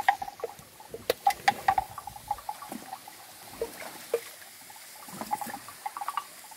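Water buffaloes drinking and stepping in a shallow muddy stream: irregular slurps and splashes of water with sharp clicks. These are busiest in the first two seconds and pick up again near the end.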